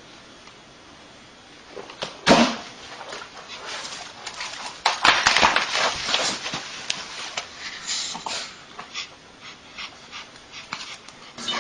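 A dog making small sounds: first a single sharp, loud noise, then a run of short, irregular noises that thin out towards the end.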